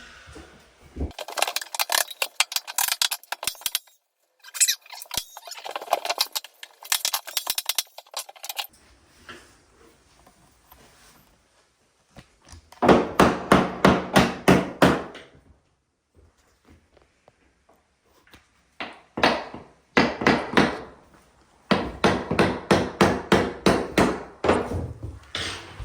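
A hammer tapping MDF skirting board into place against the wall, in several runs of rapid knocks about five a second, with short pauses between.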